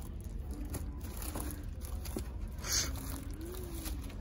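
Steady store background hum under light handling of plastic-wrapped gift wrap rolls, with a few faint clicks and one brief, louder rustle about two-thirds of the way in.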